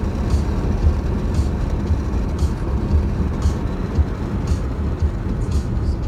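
Car driving on an open road, heard from inside the cabin: a steady low rumble of engine and tyres, with short hissy streaks about once a second.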